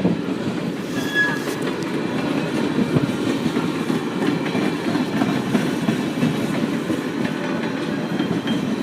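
Passenger cars of a steam excursion train rolling past on the track: a steady rumble of wheels on rail, with a brief wheel squeak about a second in.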